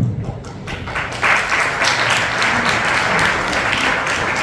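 Audience applauding, many hands clapping together; the applause starts just under a second in and carries on steadily.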